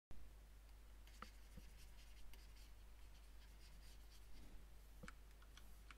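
Faint scratching of a pen stylus on a graphics tablet during brush strokes, with a few soft taps and clicks, over a steady low electrical hum.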